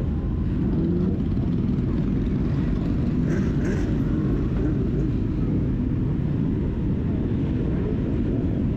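A motor vehicle running steadily: a constant low rumble with no clear change.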